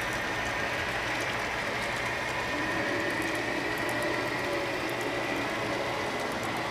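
Model railway freight cars rolling along the track: a steady whir of small wheels and running gear, with a faint thin tone and scattered light clicks.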